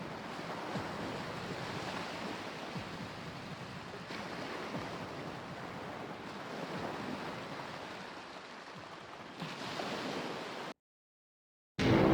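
A steady rushing noise ambience that cuts off abruptly into dead silence for about a second near the end, after which music comes in.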